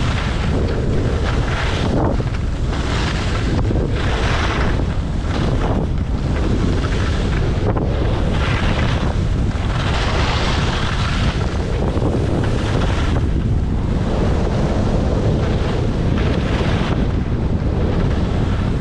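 Heavy wind rumble on the microphone during a fast ski and splitboard descent, with the hiss of edges scraping the snow swelling every second or two as they turn.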